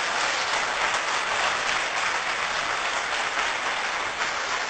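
Audience applauding: a steady clatter of many hands clapping that slowly tapers off.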